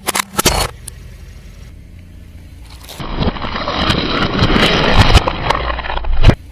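Car tyre rolling over and crushing crunchy objects: a few sharp cracks at the start, then about three seconds of dense crackling and snapping that stops abruptly.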